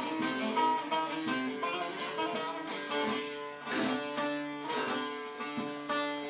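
Bağlama (saz) playing an instrumental melody line of quick plucked notes over steadily ringing strings.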